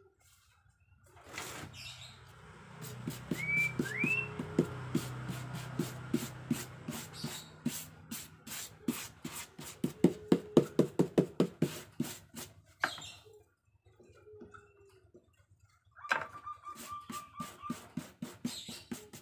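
Quick series of sharp taps, several a second, as stiff cement-sack paper is pressed and patted onto the hollow wooden frame of a reog barongan head, in two spells with a short pause. Two short rising whistles sound near the start.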